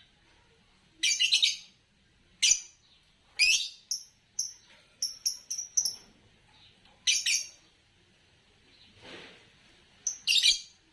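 Green Fischer's lovebirds chirping in short, sharp, high calls that come in bursts, with a quick run of single chirps about five to six seconds in. A soft noisy sound near nine seconds in.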